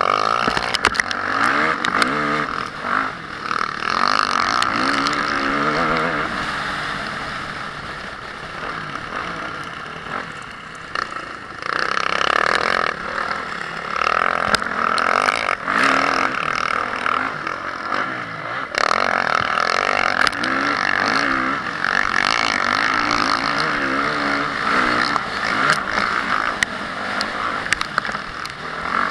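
Honda CRF450R motocross bike's 450 cc single-cylinder four-stroke engine revving up and dropping back again and again as the throttle opens and closes, under a steady rushing noise with scattered sharp knocks. It eases off for a few seconds in the middle before pulling hard again.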